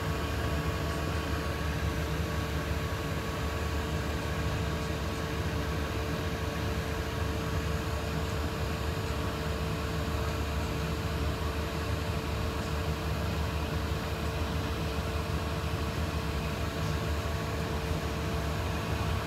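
Steady low rumble of a Boeing 777-300 jet airliner's engines as it flies high overhead.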